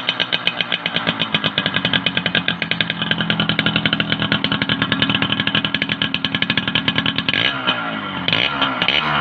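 Yamaha YB100's single-cylinder two-stroke engine idling with an even, rapid putt-putt of exhaust pulses, then revved up and back down about twice near the end.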